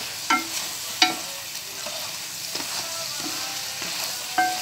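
Crabs frying in butter in a pan with a steady sizzle while a wooden spatula stirs and turns them. Three sharp knocks against the pan, each with a brief ring.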